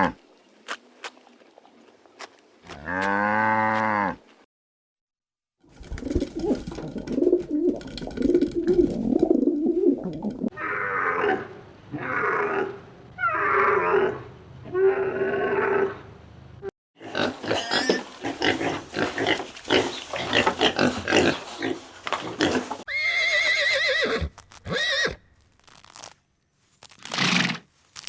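Farm animals calling in a run of short separate clips: a pitched call, then a noisy grunting stretch, a series of about four repeated calls, and more calls after that, with a brief silence near the start.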